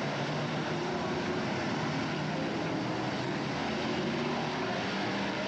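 Several BriSCA F1 stock cars' V8 engines running hard together as the pack races round the track: a steady, dense engine noise with overlapping pitches.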